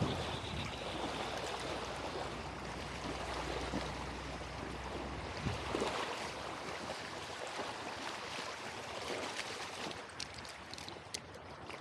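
Shallow creek water rushing over gravel, with splashing from a hooked salmon thrashing at the surface, strongest about halfway through. Near the end, footsteps crunch on river gravel.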